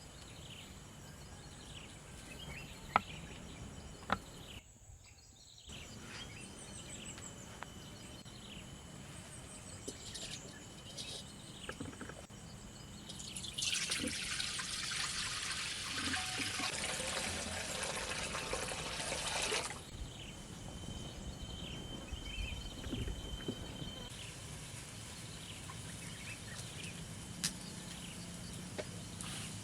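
Water pouring or running for about six seconds in the middle of the stretch, amid scattered small knocks and clicks.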